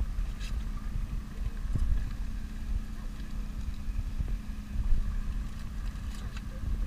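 Small motorboat's outboard engine idling with a steady hum, under a low rumble of wind on the microphone.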